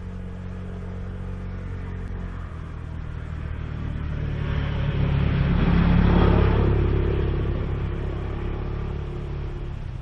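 A motor vehicle passing by: a low engine hum with a rushing noise that swells to a peak about six seconds in, then fades away.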